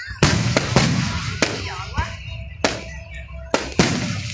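Aerial firework shells bursting overhead: a rapid string of sharp bangs, about seven in four seconds, with a low rumble rolling on between them.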